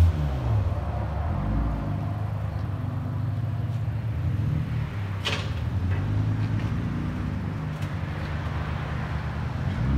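Honda Civic 1.5L turbocharged four-cylinder with a muffler delete idling through its dual exhaust, with a couple of small swells of throttle as the car creeps in reverse. A sharp click sounds about five seconds in.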